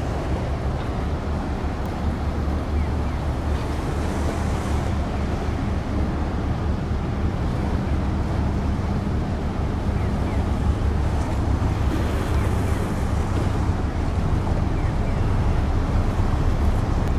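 Passing container ship's engine giving a steady low drone, mixed with the wash of water and wind on the microphone, growing slightly louder toward the end as the ship draws nearer.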